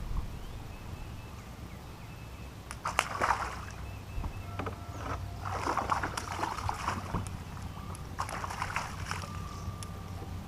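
Water splashing and sloshing in three short bursts over a steady low rumble.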